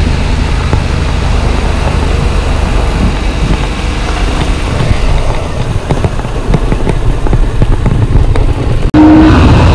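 Yamaha MT-07's 689 cc parallel-twin engine running at low speed as the bike slows along a rough lane. Near the end the sound cuts abruptly to a louder, steadier engine note.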